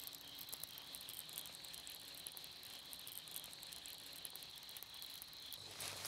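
Faint, rapid clicking of a fishing reel being cranked to retrieve a large spinnerbait, over a steady high-pitched hum.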